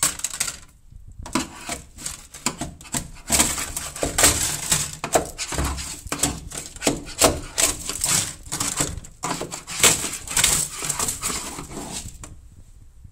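Brittle pieces of sound-deadening mat, frozen with dry ice, and dry ice pellets clattering and scraping on a Nissan S13's sheet-metal floor pan as a gloved hand sweeps them up. A quick, uneven run of knocks and scrapes that tapers off near the end.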